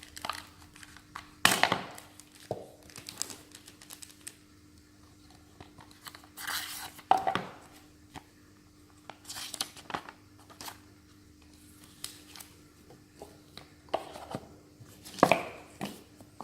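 Hands unboxing a speaker: packaging crinkling, tearing and being handled in a series of separate rustles and light knocks, loudest about a second and a half in and again near the end, over a faint steady hum.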